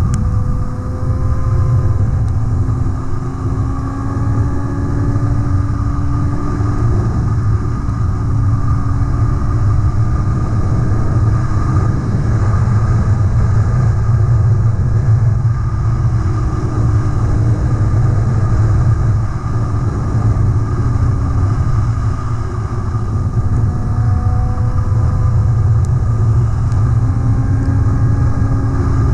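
Motorcycle engine running as the bike rides along, heard from on board. Its pitch rises slowly and then falls back several times as it pulls and eases off, under a heavy low rumble of wind on the microphone.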